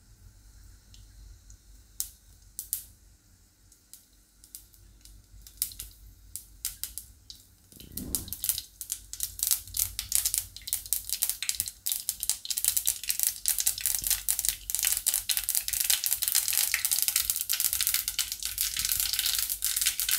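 Mustard seeds popping in hot oil in a kadhai. A few scattered pops at first, then from about eight seconds in a dense crackling spatter that keeps building in loudness as the seeds splutter fully.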